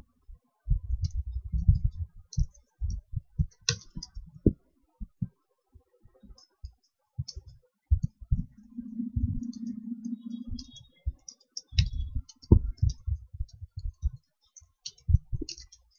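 Computer keyboard being typed on in irregular runs of key clicks as code is entered. A low steady hum sounds for about two seconds around the middle.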